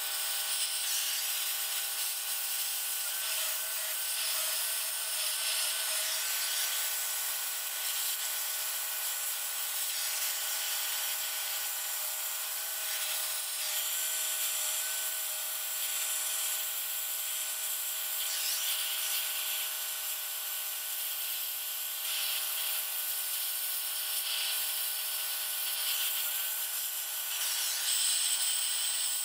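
Metal-gouging torch cutting old weld and a crack out of a John Deere 748H skidder grapple's ear boss: a steady harsh hiss that varies a little as the torch moves.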